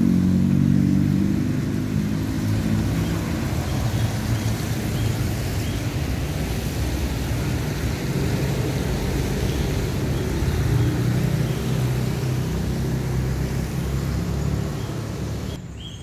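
A motor vehicle engine running steadily, its pitch shifting slowly, under a continuous rushing noise. The sound cuts off abruptly near the end.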